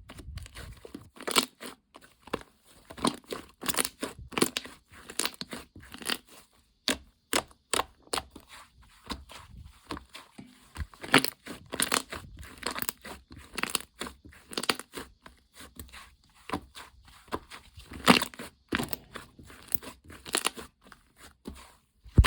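Hands playing with a gingerbread dough slime, squishing and pulling it, giving irregular sharp crackles and sticky pops, several a second.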